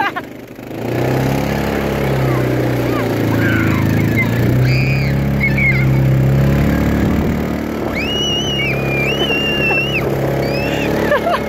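ATV engine running steadily while towing children on sleds through snow. A few high, held squeals from the children come through over it in the second half.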